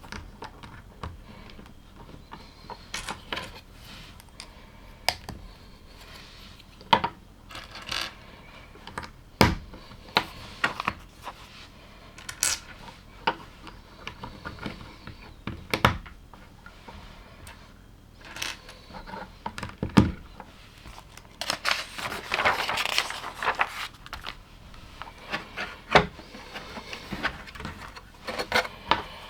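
LEGO plastic pieces being handled and pressed together: scattered sharp clicks and light knocks, with a denser stretch of clattering loose pieces about two-thirds of the way through.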